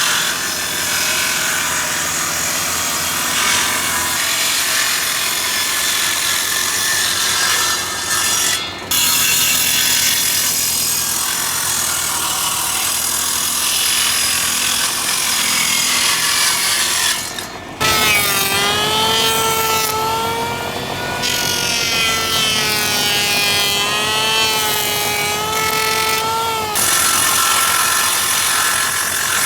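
Wood being cut and shaped with a tool, a loud continuous rasping with two short breaks. Just past halfway a wavering whine with several stacked pitches joins it for about nine seconds, then stops.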